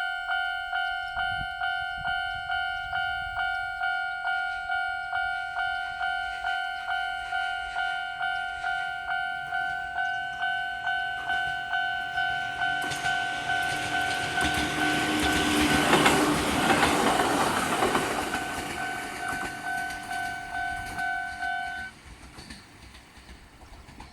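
Japanese level-crossing warning alarm, the old standard electronic tone, dinging steadily at about two strikes a second. A train passes over the crossing with a swell of wheel and rail noise, loudest about two-thirds of the way in. The alarm cuts off near the end.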